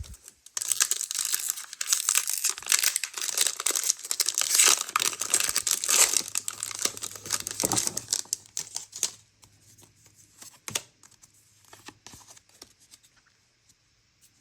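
Foil Pokémon trading-card booster pack being torn open and crinkled, loud and continuous for about eight seconds, then giving way to light scattered clicks and taps of the cards being handled.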